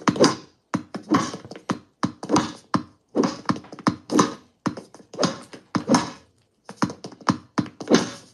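Racquetball rally: the ball smacked by racquets and bouncing off walls and floor in quick succession, about three sharp hits a second.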